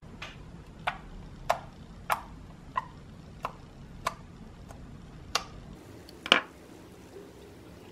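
Fingers poking soft homemade unicorn slime, each poke giving a short, sharp click, about nine in an even rhythm of somewhat under two a second. Near the end one louder pop as the slime is pulled and stretched.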